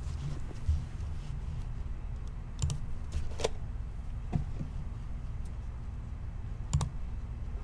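A handful of separate light clicks from a computer keyboard and mouse, spaced a second or more apart, over a steady low hum.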